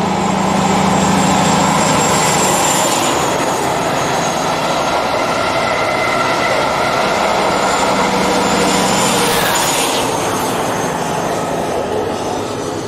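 First Great Western InterCity 125 (HST) diesel train passing at speed: the power cars' diesel engines with a high steady whine over the running noise of the train. The sound changes about ten seconds in, then fades as the train draws away.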